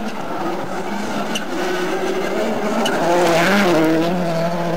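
Rally car engine at high revs as the car approaches on a gravel stage and passes close by, loudest and rising briefly about three and a half seconds in.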